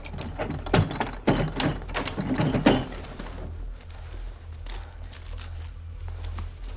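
A quick run of knocks and rustles from a person bustling about and handling things at a wooden chest of drawers, dying down after about three seconds to soft scattered clicks over a low steady hum.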